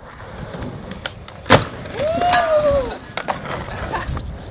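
Skateboard wheels rolling on concrete, with a sharp clack of the board about a second and a half in, followed by a short pitched sound that rises then falls, and a few lighter knocks later.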